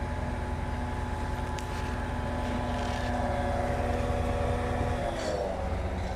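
Truck-mounted crane's diesel engine running at raised revs, driving the hydraulics while it lifts a heavy machine tool; a steady hum whose pitch drops about five seconds in as the revs come down.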